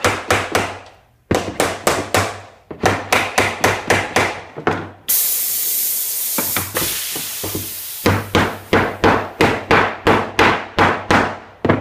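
Hammer striking the wooden joints of a drawer in quick runs, about four or five blows a second, to drive them just under flush. The runs break off midway for a loud hiss that lasts about three seconds.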